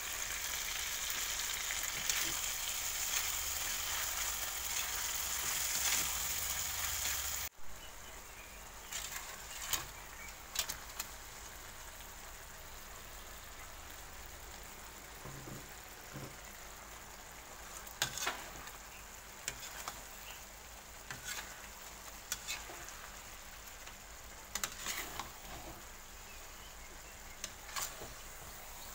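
Sliced chilies, tomato and shallots sizzling loudly in hot oil in a wok. About seven seconds in the sizzle drops abruptly to a quieter simmer of fish pieces in tauco sauce, with occasional sharp scrapes and knocks of a metal spatula against the wok.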